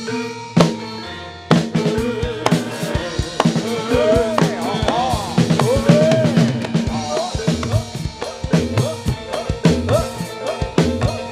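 Gamelan music for a jathilan dance: drums beating a busy rhythm over ringing metallophone tones. The drums drop out briefly about a second in and come back in, and a wavering, gliding melody rises above the ensemble in the middle.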